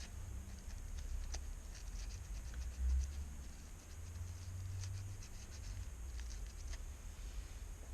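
A small brush scratching and ticking inside an iPhone's Lightning charging port as dust is cleaned out, with a low rumble underneath and a soft thump about three seconds in.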